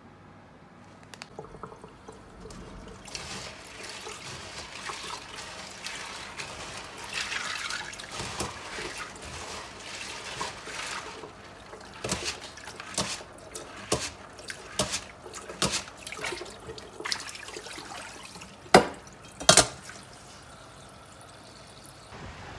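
Tap water running over kintoki beans in a stainless steel mesh strainer in a sink as they are rinsed and stirred by hand. From about halfway through come a series of sharp knocks, with two loud ones near the end.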